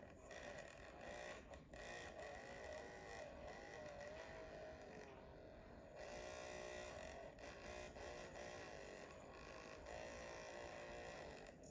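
Electric hair clippers running through a child's haircut, a steady buzz whose pitch wavers up and down.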